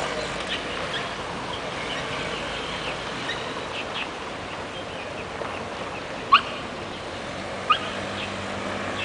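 Birds chirping with short, repeated calls over a steady outdoor background. Two sharp, much louder chirps come about six and a half and seven and a half seconds in.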